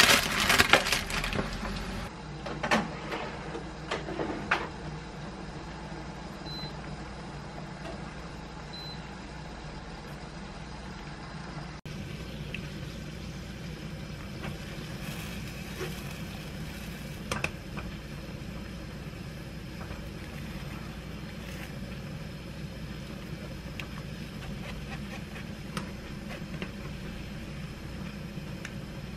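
Parchment paper crinkling and rustling for the first few seconds, loud and irregular. Then a steady low hum, with a few faint scrapes and taps of a wooden spoon working soybean paste through a metal mesh strainer.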